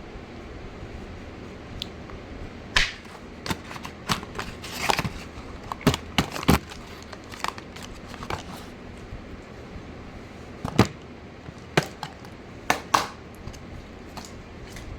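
Handling and opening the packaging of a bottle of rosemary hair growth oil for ASMR: irregular sharp taps, clicks and crinkles. The loudest are a few seconds in, around the middle, and a cluster near the end.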